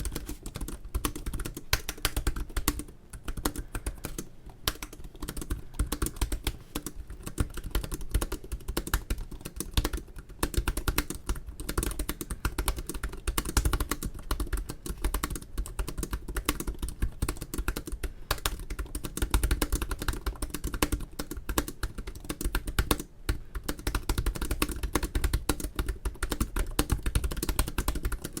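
Fast continuous typing on an HP Spectre x360 (early 2017) laptop keyboard: a dense, irregular run of key clicks, with a few brief pauses.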